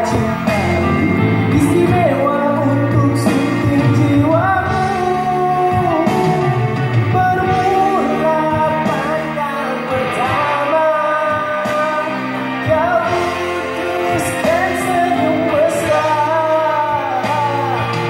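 Man singing a song into a microphone over an instrumental backing track, with long held notes that slide between pitches.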